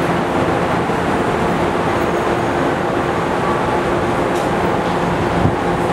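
CTA 'L' train of Budd 2600-series and Morrison-Knudsen 3200-series cars running into an elevated station: a steady rumble of steel wheels on rail under a constant hum. A single low thump comes about five and a half seconds in.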